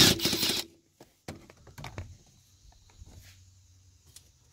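A power driver runs briefly for the first half-second, spinning out a 10 mm bolt, then stops. Faint scattered clicks and light rattles of plastic dash trim and fasteners being handled follow.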